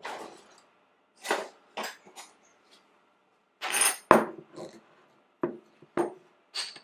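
Kitchen utensils clattering as a drawer is rummaged through, then metal measuring spoons clinking: a string of separate short clinks and rattles, the loudest about four seconds in.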